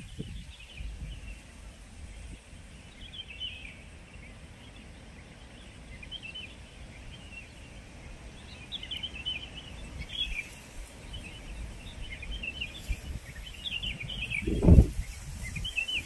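Strong wind buffeting the microphone in low, rumbling gusts, with a strong gust near the end. Birds chirp intermittently throughout.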